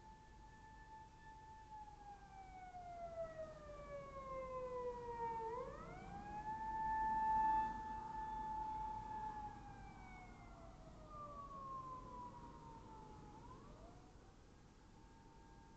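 Emergency-vehicle siren wailing: a tone held high for a few seconds, then sliding slowly down and sweeping quickly back up, about two and a half cycles. It is loudest around the middle and fainter near the end.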